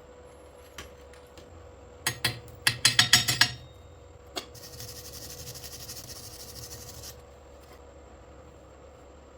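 Chipping hammer knocking slag off a freshly laid stick weld: a quick run of sharp, ringing metal strikes about two seconds in. A few seconds of steady, high scratchy scraping follows as the bead is cleaned.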